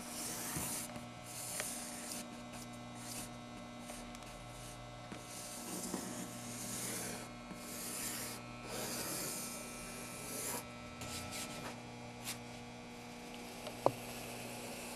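Pencil sketching on paper application-tape masking: repeated scratchy strokes, each about half a second to a second long, over a steady electrical hum. A sharp click comes near the end.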